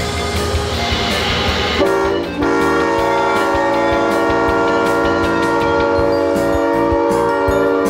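Music gives way, about two seconds in, to a diesel locomotive's air horn sounding a chord of several notes: a short blast, then one long steady blast that stops at the end.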